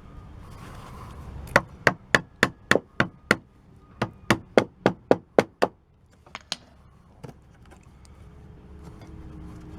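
A hammer driving a wood chisel into the rotted wood of a door frame: two quick runs of about seven sharp strikes each, roughly three a second, with a few lighter knocks after them.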